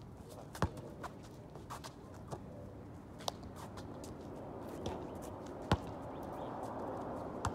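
A basketball bouncing and players' footsteps on an outdoor hard court, heard from a distance: scattered sharp thuds about a second apart, over steady background noise that grows louder near the end.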